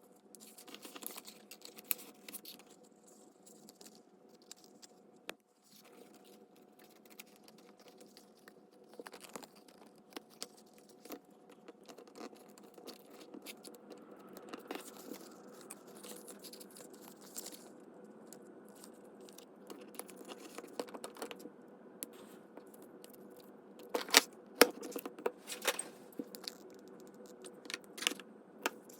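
Paper and craft materials being handled on a desk: scattered clicks, taps and brief rustles and scrapes over a steady low hum, with the loudest run of clicks a little over three quarters of the way through.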